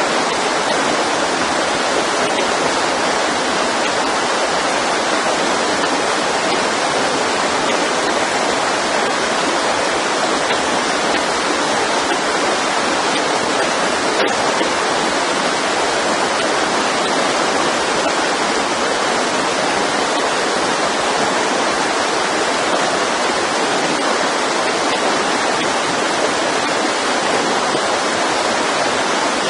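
Mountain stream flowing: a loud, steady rush of water that never lets up.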